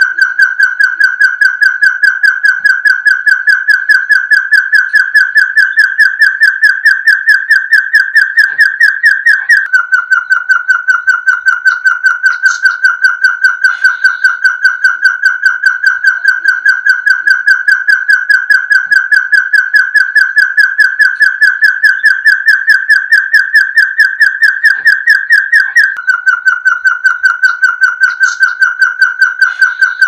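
Puyuh gonggong (an Arborophila hill partridge) calling: a rapid, unbroken series of short whistled notes, several a second. The notes creep slowly up in pitch, drop back abruptly about ten seconds in and again near the end, and start the climb over.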